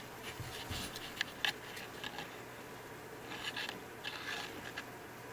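Scratchy rustling and scraping against fabric couch upholstery as a baby ferret scrambles about on the cushions, with two sharp clicks about a second and a half in and further bursts of rustling past the middle.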